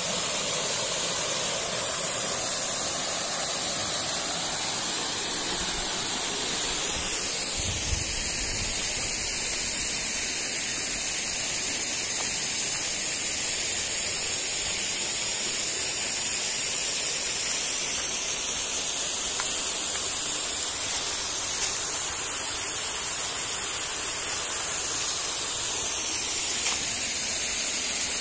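Steady hissing rush of a waterfall, with a brief low bump about eight seconds in.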